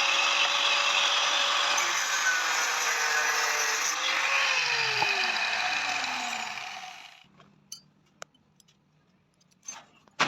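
Power tool grinding metal, a loud continuous grinding noise with a slight drop in pitch that stops about seven seconds in. A few faint clicks follow, then one sharp click at the end.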